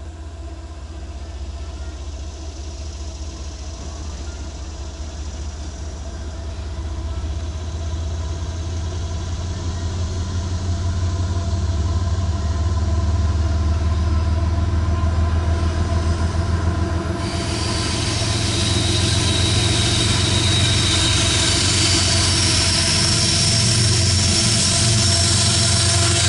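Approaching diesel freight locomotive of a CSX autorack train: a low engine hum that grows steadily louder as it nears. About two-thirds in, a rushing rail and wheel noise and a thin high squeal from the wheels join in.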